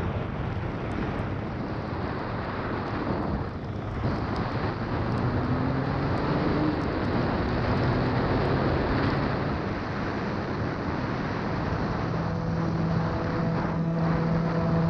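Wind rushing over the microphone of a moving motorcycle, with the Yamaha TZR125's two-stroke engine running underneath and rising briefly in pitch a few seconds in. Near the end, a steady, low musical drone comes in.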